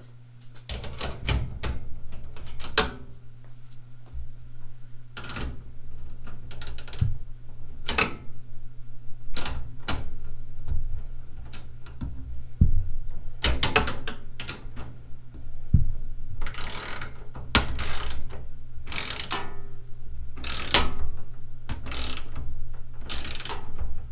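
13 mm ratcheting wrench clicking in short repeated bursts as bolts are tightened on a steel tool cart, over a steady low hum.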